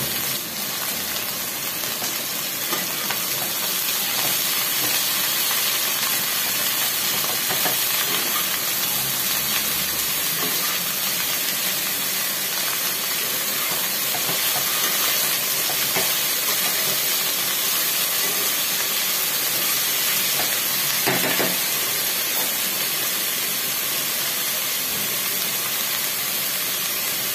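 Shredded cabbage hissing and sizzling steadily in hot oil in a kadai, just after being added to the pan. A spatula scrapes through the vegetables now and then as they are stirred.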